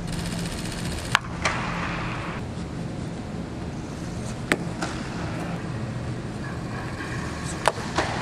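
Sharp pops of a pitched baseball smacking into a leather catcher's mitt, five short cracks in all, the loudest about a second in and near the end, over a steady low hum of a domed stadium.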